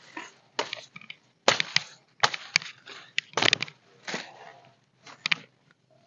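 Branches and leafy brush being snapped and torn by hand: a run of sharp, irregular cracks with rustling of leaves between them.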